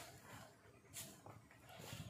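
Near silence, with a few faint clicks or crackles.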